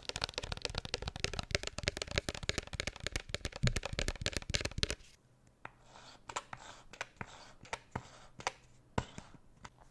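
Close-miked facial cleanser being lathered and rubbed: dense wet crackling for about five seconds, then quieter, scattered clicks and crackles.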